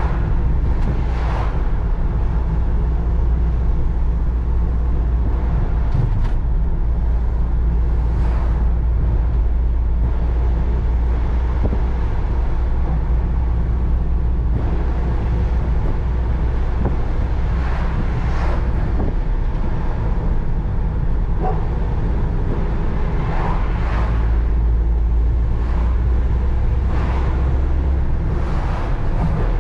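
Volkswagen T5 van with the 2.0 TDI four-cylinder diesel (84 hp) being driven, heard from inside the cab: a steady low engine and road rumble, with a few brief knocks scattered through.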